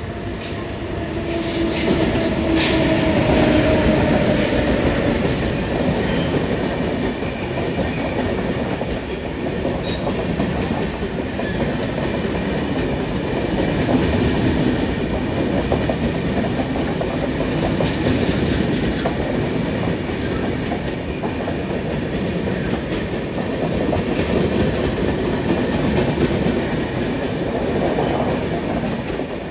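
A Mumbai suburban electric local train running past on the rails, its wheels rumbling and clattering continuously. A whining tone falls in pitch over the first few seconds.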